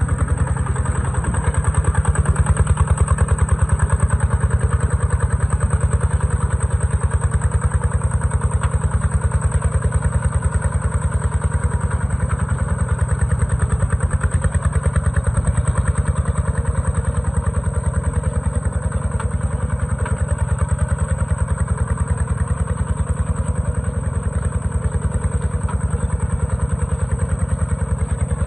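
Kubota tractor's diesel engine running steadily, with a fast, even beat of firing pulses and some mechanical clatter.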